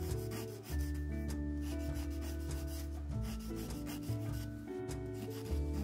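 Nail file scraping back and forth across fingernails in repeated quick strokes, over background music.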